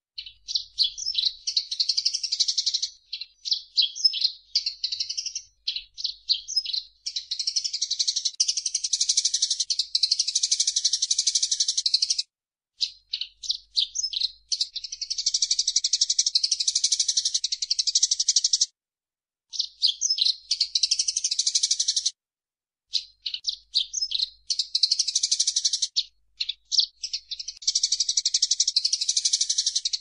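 Eurasian tree sparrows chirping vigorously: long runs of rapid, high chatter alternating with looser series of separate chirps, broken by a few short pauses.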